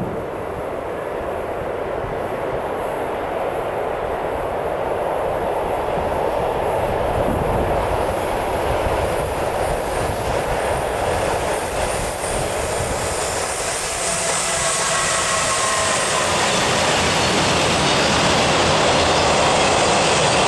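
Car-transporter freight train hauled by a pair of DB class 185 electric locomotives, rolling round a curve and passing close, its wheel noise growing steadily louder. A faint wheel squeal joins in about two-thirds of the way through.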